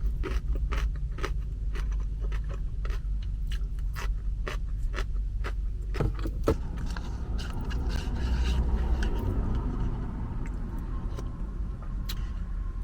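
Close-miked eating: chewing and biting, with a utensil scraping and clicking against a food container many times, over a low steady rumble.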